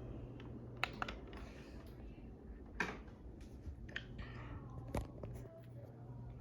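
Hampton Bay Tipton II ceiling fan running with a low steady hum, with a few short sharp clicks scattered through it.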